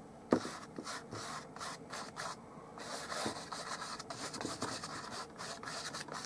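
Stiff flat bristle brush scrubbing oil paint across a canvas in a quick run of short strokes, with a sharp tap about a third of a second in.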